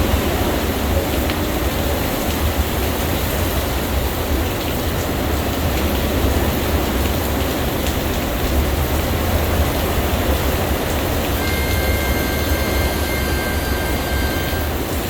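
Category 4 hurricane wind with rain: a loud, steady rush with a heavy low rumble of the wind buffeting the microphone. A faint, thin whistle comes in near the end.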